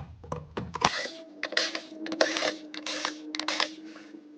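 Sharp clicks and short metallic clinks and rattles, several a second at times, as screws are taken out of a sheet-metal charger housing and handled, over a faint steady hum.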